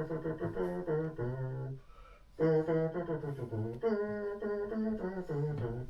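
A single-line tune in short held notes, with a break about two seconds in before the tune carries on.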